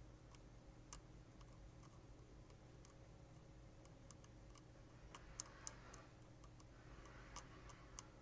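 Faint, scattered small clicks and taps of small tools on a graphics card's circuit board, with the two sharpest clicks about five and a half seconds in and a light scraping noise around them and again near the end.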